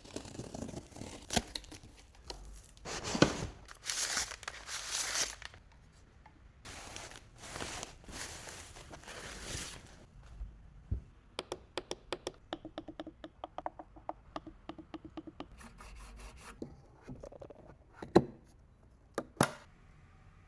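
Packaging being opened and handled: long tearing and rustling bursts, then a run of quick clicks and knocks, with a sharper knock near the end.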